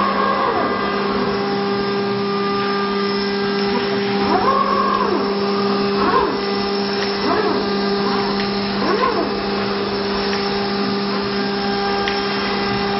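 Forsun automatic-tool-changer CNC router running, with a steady motor hum and short whines that rise and fall every second or two.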